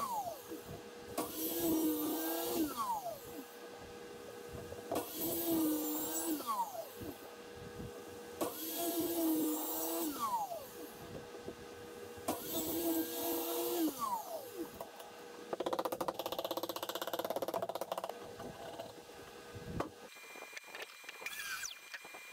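Plunge track saw cutting short slots into a plywood tabletop: about five runs a few seconds apart, each with the motor whining up, a hiss of the blade cutting, and the motor winding down with a falling pitch. A rougher, steadier noise follows for a few seconds after the last run.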